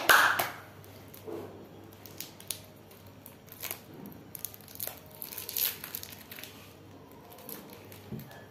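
Plastic wrapper of a small chocolate bar being torn open and crinkled by hand, in irregular crackling bursts, loudest about two thirds of the way through.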